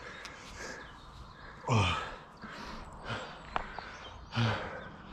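A mountain biker breathing hard on the trail: two loud voiced sighs, the first sliding steeply down in pitch about two seconds in, the second shorter and low about four seconds in, over a steady rush of riding noise.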